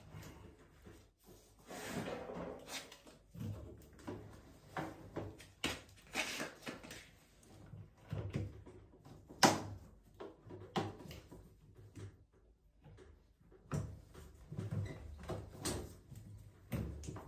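Irregular knocks, clicks and scrapes of hand work on washing machine parts, with one sharp click about halfway through.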